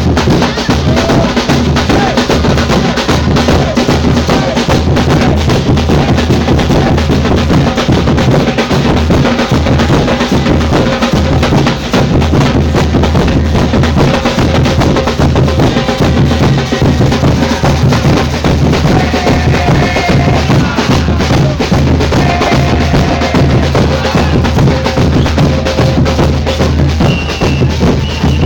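Samba batucada percussion ensemble playing a continuous groove: deep bass drums under snare drums and other percussion.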